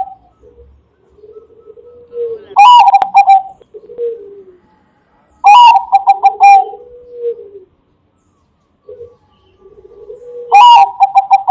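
Bangkok-type perkutut (zebra dove) cooing: three loud, stuttering coo phrases a few seconds apart, each a quick rising note followed by a string of rapid short notes, with softer, lower cooing between them.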